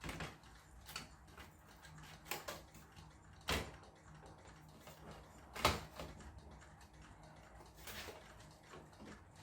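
Scattered knocks and clicks from handling an opened-up LCD TV and its parts, a few sharp knocks, the loudest about two thirds of the way through, with smaller taps between.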